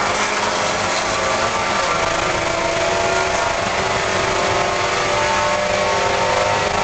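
Spec Miata's four-cylinder engine running hard at racing revs, heard from inside the car over road and wind noise. The engine note shifts about a second and a half in, then climbs steadily as the car accelerates.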